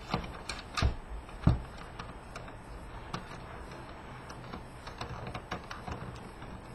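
Clicks and knocks of plastic and metal parts being handled as a PlayStation 3 Blu-ray drive is taken apart: three louder knocks in the first second and a half, then scattered light clicking.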